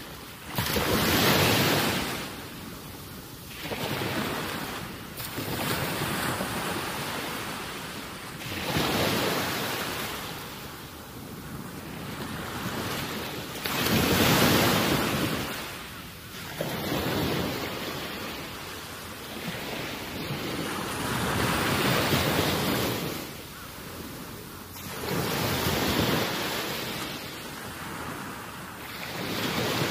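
Outdoor rush of wind over the microphone and water at the shoreline, swelling and fading every two to four seconds.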